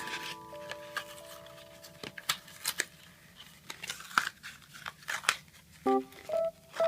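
Close-up handling sounds of an unboxing: a scatter of small sharp clicks and taps, with soft piano music dying away early and starting again near the end.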